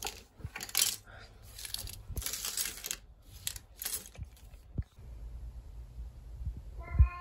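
Plastic pens, markers and highlighters spilled on a desk clattering and rattling against each other in several bursts as a hand moves through the pile. Near the end a cat starts to meow.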